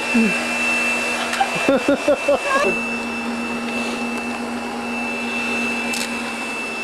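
Hotel vacuum cleaner running with a steady whine. About a second and a half in, there is a second or so of clicks and short wavering tones.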